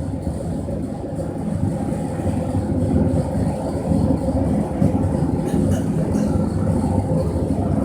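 Homemade gas-fired foundry furnace running, its burner giving a steady, low, rushing rumble while it heats a crucible of brass to melting.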